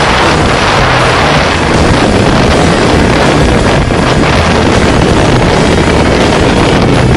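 Strong wind buffeting the microphone on a sailing yacht under way in heavy weather, with water rushing past the hull, a loud steady noise throughout.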